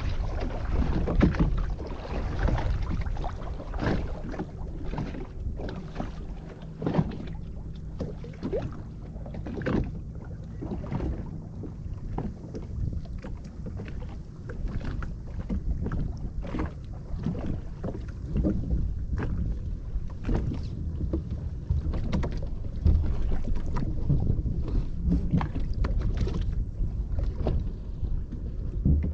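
Water slapping and splashing against the hull of a small boat under way, in many short irregular splashes over a steady low rush of water and wind on the microphone.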